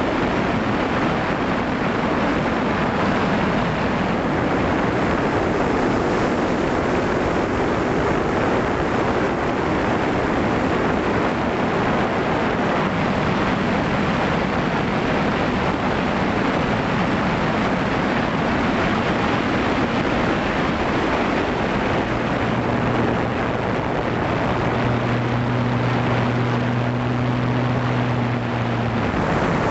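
Steady rushing wind noise on the onboard microphone of a flying quadcopter drone. A low steady hum from the drone's motors and propellers comes through about three-quarters of the way in and stops just before the end.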